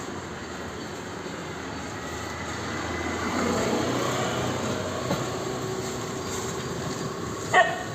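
Steady traffic noise that swells as a vehicle passes about three to four seconds in, with one short, sharp high-pitched sound near the end.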